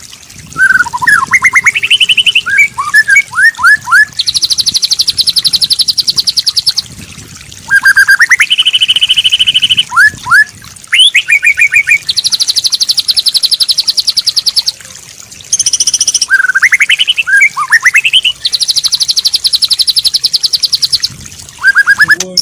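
White-rumped shama singing loudly: bursts of rising whistled notes alternate with long, fast trills, the pattern coming round three times with brief pauses between phrases.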